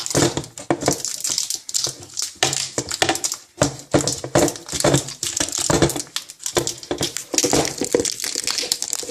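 Aluminium foil being crinkled and crumpled in the hands: a loud, dense run of sharp crackles.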